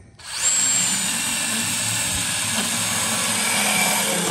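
Cordless power saw starting up about a quarter second in with a brief rising motor whine, then running steadily as it cuts through copper pipe.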